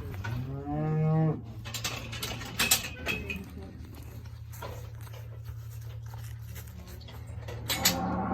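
A calf bawls once for about a second, with a few sharp knocks after it and a second bawl starting near the end, over a steady low hum.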